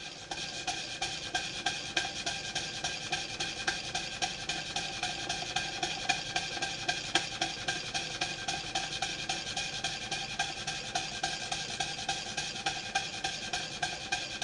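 Markie live-steam model traction engine running steadily under its own steam. Its exhaust and motion make a quick, even beat of several short chuffs and clicks a second over a steady hiss.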